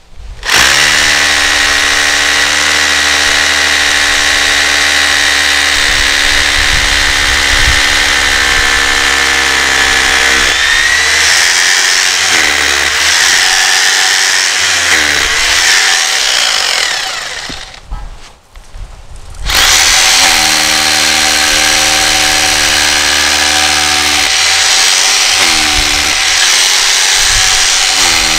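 Corded electric drill boring holes into a concrete slab, finishing the pilot holes to full depth. The motor whines steadily, its pitch sagging several times as the bit bears down, stops for about two seconds a little past the middle, then starts again.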